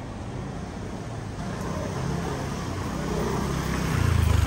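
A motor vehicle's engine running with a low hum, growing louder near the end, over general street noise.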